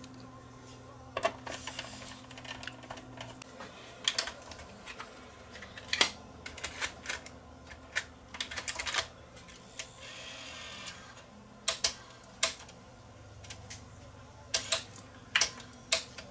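Scattered sharp clicks and knocks of hands working on a Sony PCM-R300 DAT recorder as it is screwed back together and set up for a test, with a low hum that stops about three seconds in and a brief whirr about ten seconds in.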